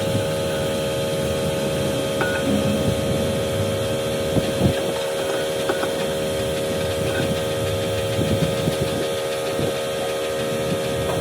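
A steady machine hum with several held tones, over irregular light knocks and clinks of metal tools being handled.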